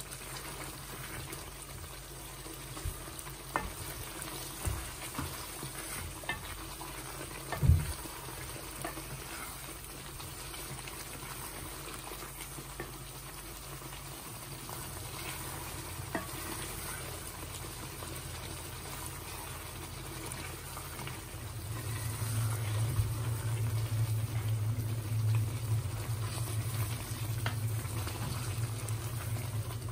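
Chicken tikka karahi masala sizzling as it is fried down (bhuna) in an aluminium karahi while a wooden spoon stirs it, with a few sharp knocks of the spoon against the pan, the loudest about eight seconds in. About two-thirds through, a low steady hum joins in and stays.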